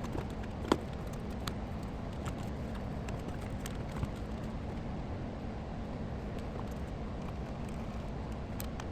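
Scattered light clicks and taps of computer hardware being handled and fitted in a PC case, the sharpest a bit under a second in, over a steady low hum.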